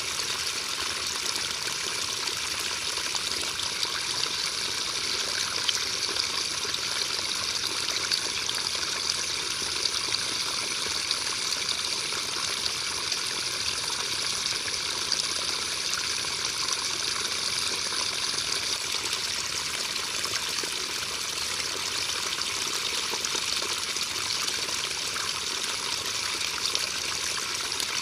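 Steady rain: a constant hiss of falling drops with many small, scattered drop ticks, even in level throughout.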